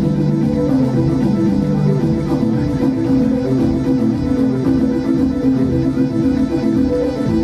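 Live electronic music from a synthesizer duo: a steady, loud, continuous sequence of stepping notes in the low-middle range.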